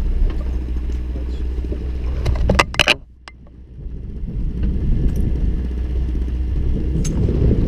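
Boat's outboard engines idling with a steady low hum. A short rattle of clicks comes about two and a half seconds in, then the sound drops away abruptly for about a second before the hum comes back.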